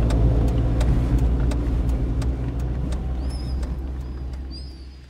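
A car's low engine and road rumble heard from inside the cabin, with a regular ticking about two to three times a second. It all fades away over the last two seconds, and a few faint high chirps come near the end.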